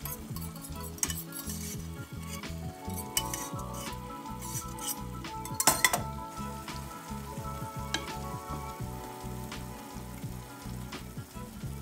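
Tomato-and-pepper sauce sizzling in a stainless sauté pan while flaked saltfish is scraped in from a metal pot with a fork, then stirred with a wooden spoon. A loud metal clank comes about halfway through.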